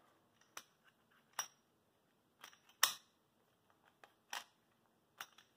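Glock pistol being handled: a series of separate sharp mechanical clicks and clacks, about six, the loudest a little under three seconds in.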